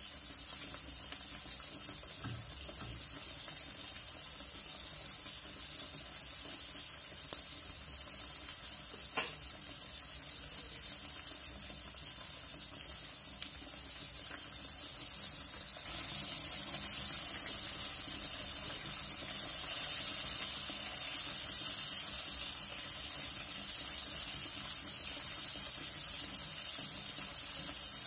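Flour-and-egg-coated pork chop frying in hot oil: a steady sizzle with a few sharp pops in the first half, growing a little louder just past halfway.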